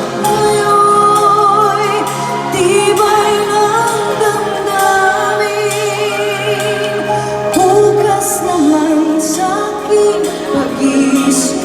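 Female singers performing a pop song live over instrumental accompaniment, holding notes with vibrato.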